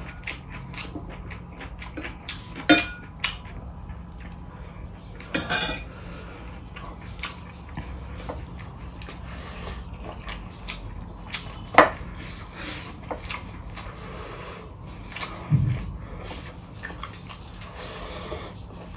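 Eating by hand from a stainless steel plate: fingers working rice against the metal and chewing, with scattered short clicks and knocks of tableware, a few of them sharper and louder.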